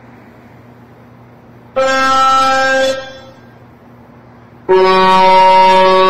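Truck horn sounding two blasts: a short one of about a second near the middle, then a longer, lower-pitched one near the end, over faint steady highway traffic noise.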